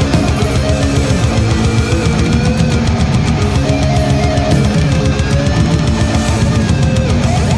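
Groove metal song: distorted electric guitars playing a riff over a drum kit, with sustained notes that bend in pitch.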